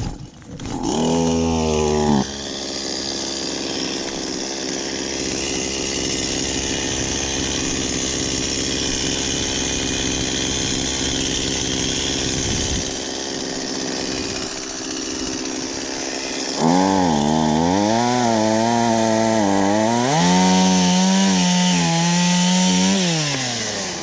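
Chainsaw revving up, then running steadily. About two-thirds through it turns louder, its pitch rising and dropping as it cuts firewood, then winds down near the end.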